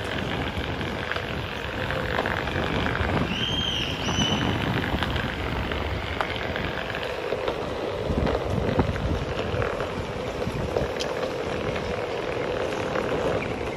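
Wind rushing over the microphone and the rolling rumble of an electric Onewheel board travelling over paving, with a faint steady hum. A brief high squeak about three seconds in.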